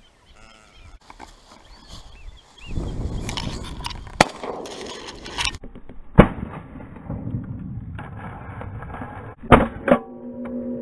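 Four loud shotgun shots, the last two close together, heard from a camera mounted on the gun's barrel, with wind noise on the microphone as the gun swings. Music starts near the end.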